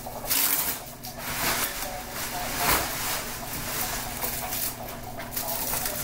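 A large sheet of clear plastic packaging wrap crinkling and rustling as it is pulled off a new foam surfboard and bundled up, in uneven surges of crackle.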